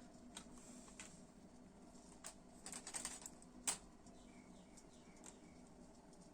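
Faint handling clicks and small knocks from the tripod and its parts: a quick run of light clicks about three seconds in, then one sharper click shortly after.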